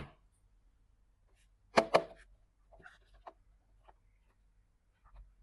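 Handling noises from unboxing a gadget: two sharp clicks or knocks in quick succession about two seconds in, then a few light ticks and rustles, with a soft tap near the end.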